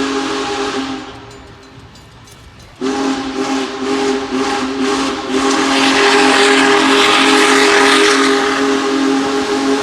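Union Pacific Big Boy steam locomotive's chime whistle blowing a chord of several tones. It breaks off about a second in, then sounds again near three seconds and is held. Steam hiss and the rush of the passing train grow loud over the whistle in the second half.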